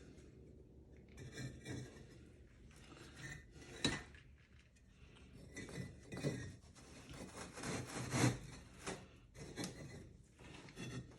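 Insulating fire bricks being set down and slid into place against one another: irregular scrapes and light knocks, the sharpest knock about four seconds in.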